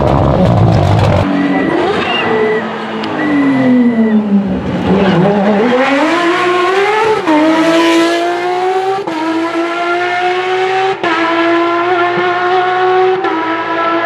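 Rally cars at speed on a closed road: an engine's revs fall for a couple of seconds, then climb hard, and through the second half a high-revving engine holds a steady note, with brief changes in pitch.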